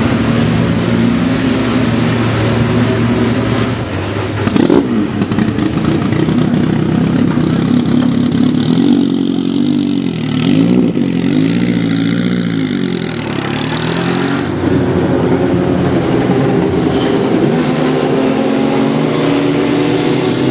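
Group C sports-prototype race car engines running flat out, the pitch climbing and dropping again and again through gear changes and passes. A brief loud burst about four and a half seconds in.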